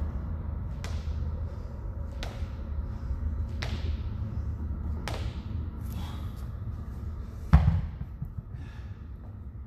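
A pair of 50-pound hex dumbbells dropped onto a rubber gym floor with one heavy thud about seven and a half seconds in. Before it come short sharp sounds about one every second and a half as the reps go on.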